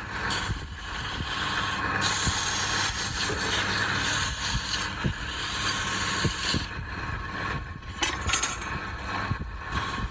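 Workshop power tool running steadily, with a brighter hiss that comes in about two seconds in and stops near seven seconds, then a few sharp clicks about eight seconds in.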